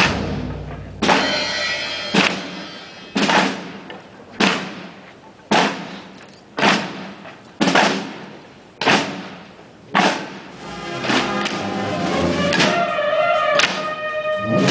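Slow, steady procession drum beats, about one stroke a second, each stroke ringing on and fading before the next. Near the end, sustained band tones begin over the beat.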